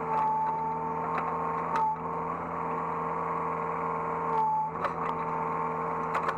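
Hydraulic excavator running, heard from the operator's seat: a steady engine and hydraulic-pump whine whose pitch dips briefly twice, with scattered clicks and knocks.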